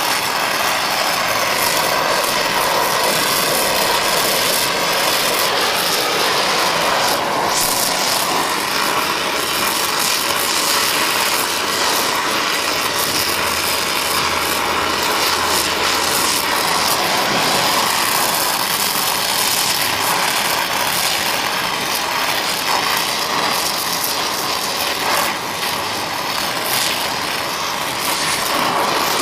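Oxy-fuel torch flame running with a steady hiss, heating a cast iron part to red heat for bronze brazing.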